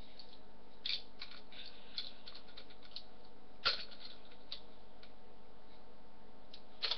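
Scattered light metal clicks and ticks from an Allen key working the bolts of a scooter's SCS compression clamp, with two sharper clicks, one a little past halfway and one near the end.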